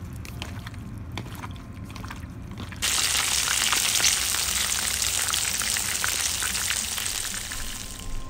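Potato-starch-coated chicken pieces deep-frying in hot oil: a loud, dense sizzle full of crackles that starts suddenly about three seconds in. Before it, soft wet squishing and clicks of raw chicken thigh pieces being mixed by hand with their marinade in a bowl.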